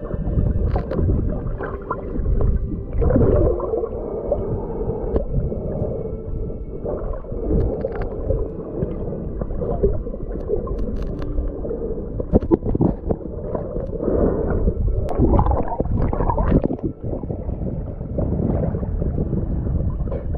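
Muffled underwater sound heard through a submerged camera: a steady low rumble and gurgling of water, broken by scattered knocks and scrapes as bare hands pull mussels off the seabed.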